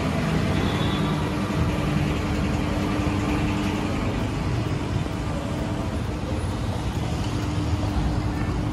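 A motor running steadily: a continuous low drone with a held hum tone through it.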